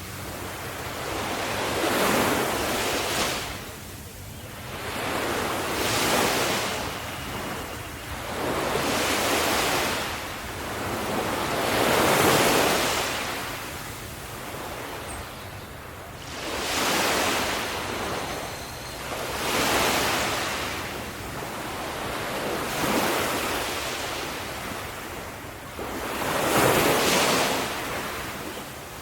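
Sea waves breaking and washing on a shore, the surf swelling and ebbing in a steady rhythm of about one wave every three seconds.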